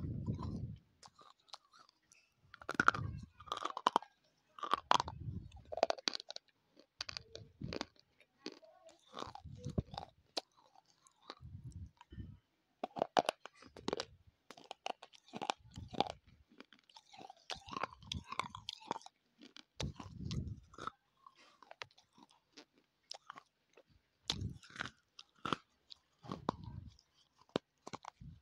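Close-miked chewing of a dry, brittle clay bar: irregular sharp crunches every second or so with softer grinding between them, and a fresh bite near the end.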